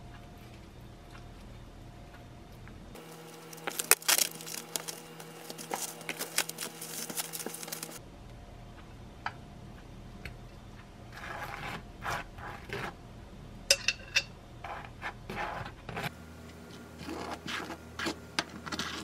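Kitchen handling sounds in short edited cuts: cling film crinkling around a campagne-bread sandwich, then a table knife scraping tomato sauce across slices of bread in short strokes.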